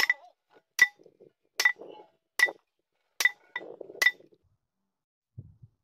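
Hammer blows on the steel gear and shaft of a dismantled water-lift machine: six sharp, ringing metal strikes, evenly spaced about 0.8 s apart, with softer knocks between them.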